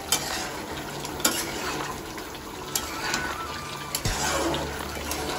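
A spatula stirs a thin curry gravy in a metal wok: the liquid sloshes, and the spatula strikes the pan in a few sharp clinks, over a steady low hum.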